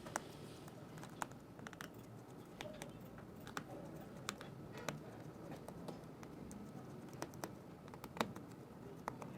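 Faint, irregular small clicks and taps of a precision screwdriver working the screws out of a smartphone's main-board cover.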